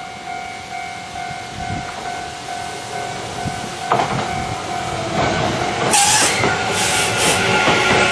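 Japanese level crossing warning bell ringing in a steady pulse as an electric commuter train comes through, the train's rumble growing louder. Two short loud hisses about six and seven seconds in.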